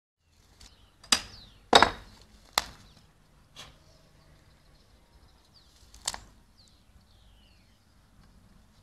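About five sharp knocks of hard objects striking each other, spread over several seconds, the loudest pair close together about two seconds in.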